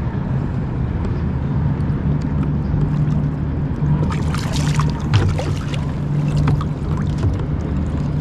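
A boat motor running with a steady low hum. A cluster of short high clicks comes about four to five seconds in.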